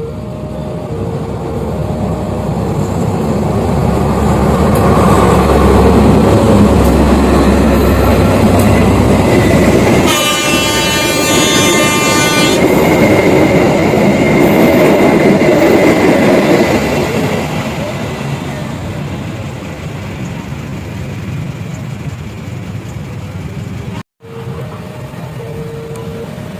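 Railroad crossing warning signal sounding its alternating two-tone beeps as a train passes: the rumble of the train builds over several seconds, a train horn blows for about two and a half seconds in the middle, then the rumble fades and the crossing beeps are heard again near the end.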